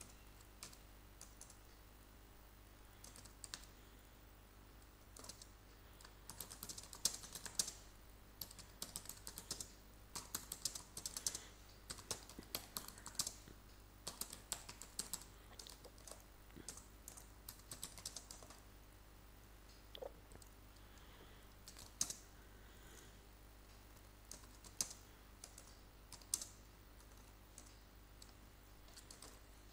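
Faint computer keyboard typing: quick runs of keystrokes through the first two-thirds, thinning to a few separate key presses near the end.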